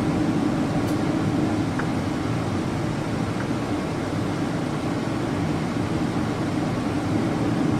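Steady low drone of a Boeing 777's engines and cabin air, heard inside the passenger cabin; the level holds even, with no build-up of thrust.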